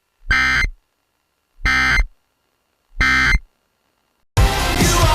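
Emergency Alert System SAME end-of-message data tones on NOAA Weather Radio: three short, buzzy digital bursts about a second and a half apart, marking the end of a severe thunderstorm warning. About four seconds in, a burst of noisy hiss follows.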